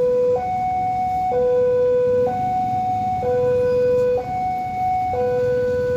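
Railway level-crossing warning alarm, an electronic two-tone signal alternating steadily between a low and a higher tone, about one tone a second. It warns that a train is approaching while the barrier closes.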